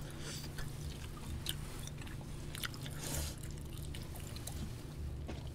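People eating: chewing with scattered small clicks of chopsticks against disposable food containers, over a steady low hum.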